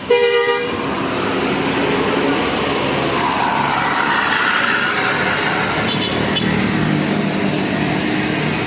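A bus horn gives one short, loud blast right at the start, then engine and road noise from passing bus traffic runs steadily.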